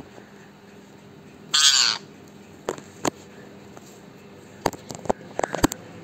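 Rose-ringed parakeet giving one loud, harsh squawk about a second and a half in, the call of an angry, agitated bird. A scatter of sharp clicks and taps follows in the second half.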